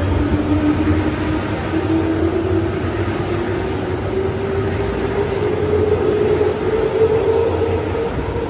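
JR electric commuter train pulling out of the platform, its motor whine climbing steadily in pitch as it gathers speed, over the steady rumble of the cars rolling past.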